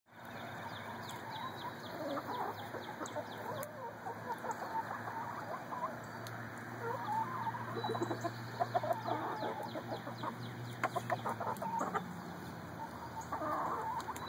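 Flock of chickens clucking as they forage, many short calls overlapping throughout.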